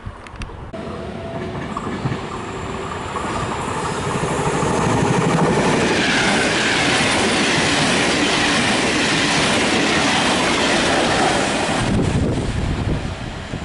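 Regional passenger train passing close by through the station, its wheels running over the rails. The sound builds up, holds loudest for several seconds, then fades near the end.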